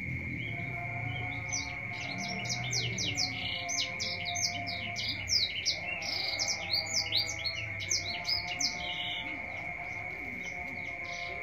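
A small caged songbird singing a rapid, chattering run of high chirps from about a second and a half in until near the end, over a steady high-pitched whine.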